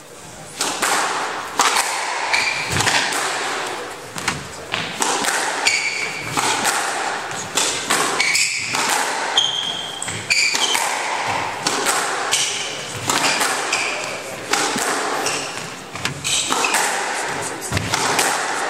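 Squash rally: the ball struck by rackets and hitting the court walls in a run of sharp thuds, with short high squeaks of court shoes on the wooden floor scattered among them.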